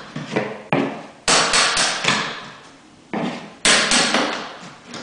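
A wooden baseboard being knocked and pried off the wall: about five sharp knocks and cracks, each with a short rattling tail.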